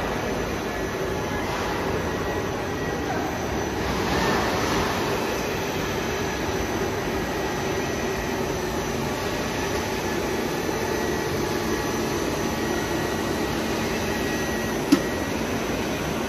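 LDPE blown film extrusion line running: a steady mechanical hum and whir with a few faint steady tones. A single sharp click sounds near the end.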